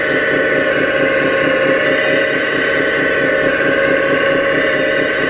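Scale RC hydraulic excavator (a model Hitachi Zaxis 330) running as it works its arm and bucket: a steady mechanical whine over a fast, even throb.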